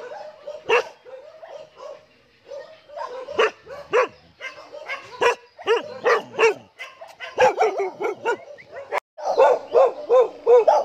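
Kennel dogs barking repeatedly in short barks, the barking growing denser and louder about two-thirds of the way through.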